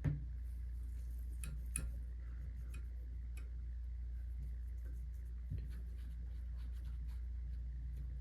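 Scattered small clicks and taps from AR-15 rifle parts being handled and turned while being oiled, over a steady low hum.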